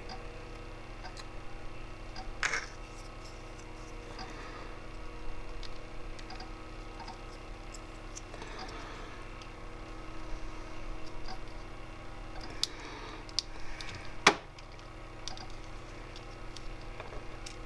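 Small plastic action-figure parts clicking and rubbing as they are handled and pressed together by hand, with scattered light clicks and one louder, sharper snap late on.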